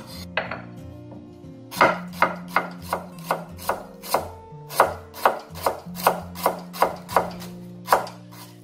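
Kitchen knife slicing young galangal on a wooden chopping board: a run of about fifteen quick, even chops, two to three a second, starting about two seconds in.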